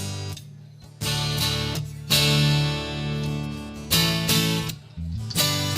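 Live band playing an instrumental intro: strummed guitar chords hit hard about once every one to two seconds and left to ring, over bass guitar notes.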